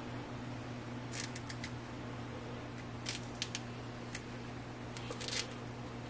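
Lemon peel being torn off by hand: short crisp rips and scratches in small clusters, over a steady low hum.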